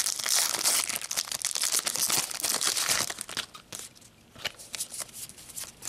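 Foil wrapper of a Pokémon trading-card booster pack crinkling and tearing as it is ripped open, a dense crackle for about three and a half seconds. It then drops to a few soft ticks and rustles as the cards are slid out.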